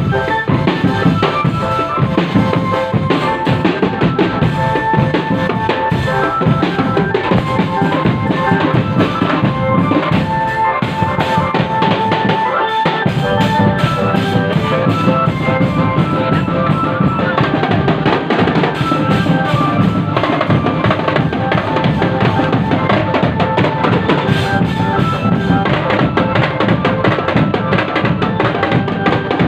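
Street drum band playing: dense, continuous drumming on bass and snare drums with a held melody line over it. The low drums drop out for a moment about twelve seconds in.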